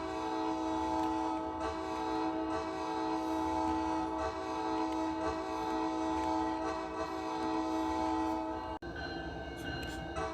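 Coaster commuter-train cab car horn sounding one long, steady multi-note chord. It cuts off suddenly about nine seconds in, and a weaker horn sound follows.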